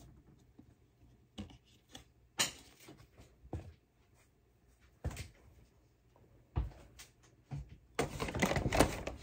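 Trading cards and a wax-pack wrapper being handled close to the microphone: scattered light knocks and taps, then a dense crinkling rustle near the end.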